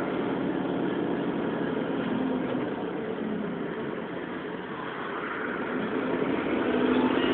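Transit bus running, heard from inside: a steady mechanical drone with faint whining tones. It eases off about four to five seconds in, then builds again near the end.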